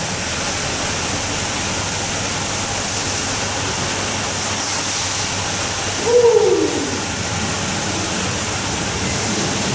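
Steady rushing noise of car-wash equipment running in the background, with one short tone falling in pitch about six seconds in.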